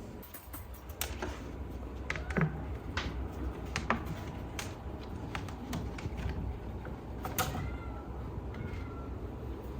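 A domestic cat meowing softly a few times, with scattered light taps and clicks.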